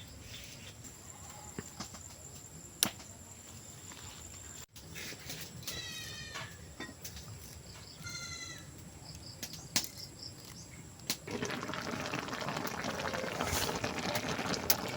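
An animal calls twice, two short wavering calls about two seconds apart. From about three-quarters of the way in, a busier rustling noise builds up.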